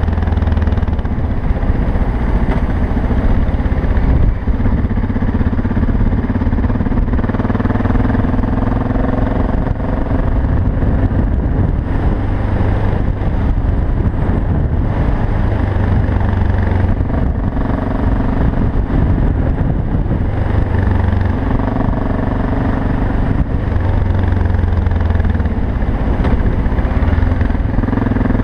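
BMW F650GS single-cylinder engine running steadily as the enduro bike rides along a dirt road, its pitch rising a few times as it accelerates.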